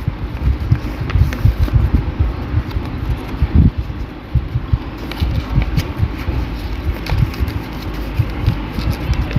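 Yellow paper being folded and creased by hand, with small crinkles and crackles, under irregular low thumps and rubbing from a clip-on microphone brushing against clothing.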